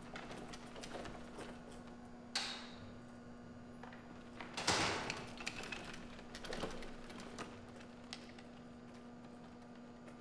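Janitor's cleaning cart rolling over a tiled floor, its wheels and loaded fittings rattling and clicking. There is a sharp knock about two seconds in and a louder clatter near the middle, over a steady low hum.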